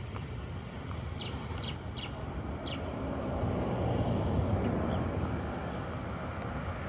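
Road traffic passing, a vehicle's rumble swelling about halfway through, with a few short bird chirps in the first three seconds.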